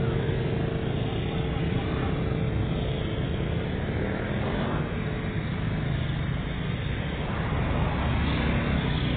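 Small motorcycles and scooters riding past one after another, their engines running in a steady overlapping drone.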